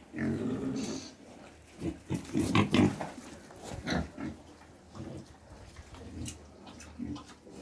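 Pigs grunting in a quick run of short calls, loudest in the first three seconds, with fainter grunts after.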